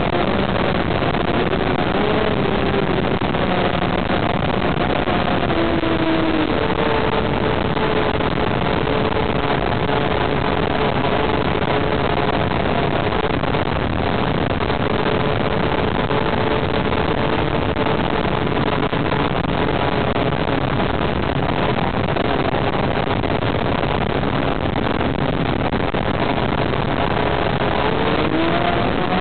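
Moriken Prairie RC model plane's motor and propeller droning steadily, heard from a camera aboard the plane with a heavy rush of air. The pitch wanders slightly with throttle and rises near the end.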